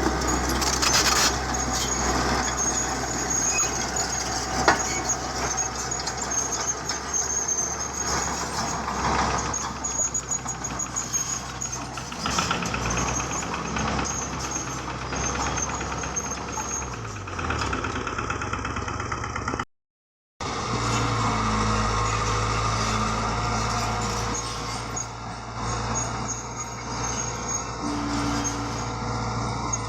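Heavy diesel construction machinery running steadily, with a high thin squeal over it for the first part. About two thirds of the way in, the engine note falls away. The sound cuts out for a moment, then a steady engine hum resumes.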